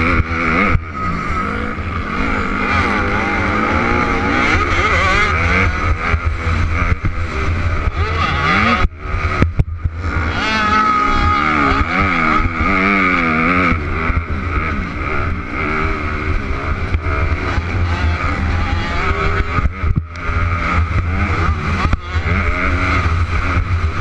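Motocross dirt bike engine heard from a camera on the bike, revving up and down as it is ridden hard along the track, with steady wind rumble on the microphone. The engine note drops out briefly twice, about nine and twenty seconds in, as the throttle is shut off.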